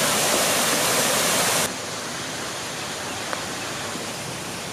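A steady rushing hiss that drops suddenly to a lower level about a second and a half in, then runs on evenly.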